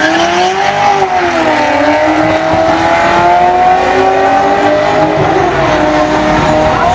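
Nissan Skyline R34 GTT's turbocharged RB25DET straight-six and a second car launching off the line and accelerating hard down the drag strip. The engine notes rise in pitch and dip at gear changes about a second in and again near five seconds. The R34's clutch was slipping on this run.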